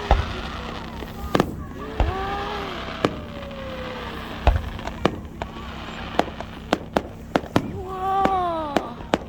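Fireworks display: a few deep booms of shells bursting in the first half, then a quick run of sharp cracks and pops.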